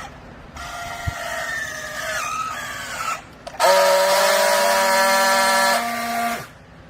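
Hydraulic textile baler running: a whining hiss with a few slightly falling tones, then about three and a half seconds in a louder, steady multi-tone whine over a hiss that cuts off abruptly near the end.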